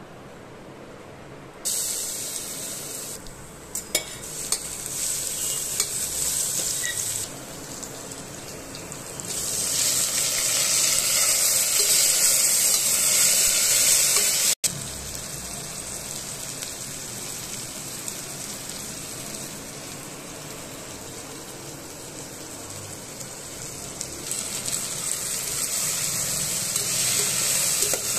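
Chopped onion, tomato and chilli frying in hot oil in a stainless steel pressure cooker, with a steady sizzle that starts suddenly about two seconds in as they hit the oil. It is loudest around the middle, drops back, and swells again near the end as chopped vegetables are stirred in, with a few sharp clinks of the metal spoon against the pot early on.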